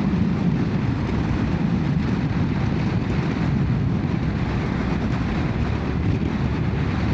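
Motorcycle riding along at a steady pace: engine and wind noise as one even, low rumble.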